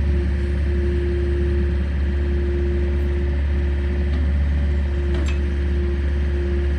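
Volvo EC55C mini excavator's diesel engine running steadily, a deep rumble with a constant whine held over it.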